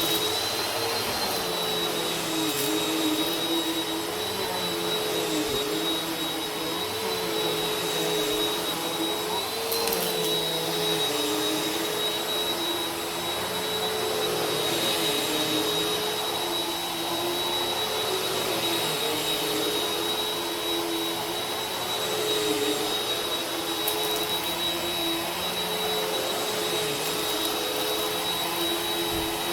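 Vacuum cleaner running steadily, with an even rush of suction air and a high motor whine whose pitch wavers slightly.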